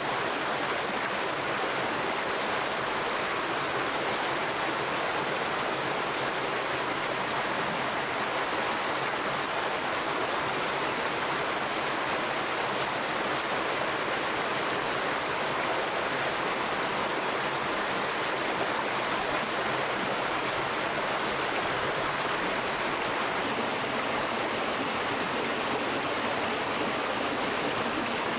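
Steady rushing of a nearby stream, an even water noise without breaks.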